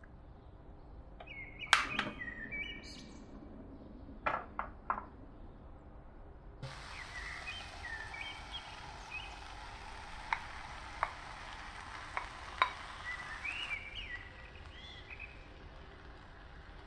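A whisk tapping against a glass bowl a few times, then a steady sizzle as the egg, cheese and herb batter is poured over sausage slices in a frying pan, with several sharp taps. Birds chirp faintly in the background.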